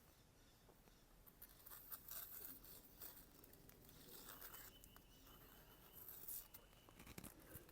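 Faint sound of a freshly stropped knife slicing through paper: soft rasping cuts in two spells, about a second and a half in and again around six seconds in, a test of the edge's sharpness.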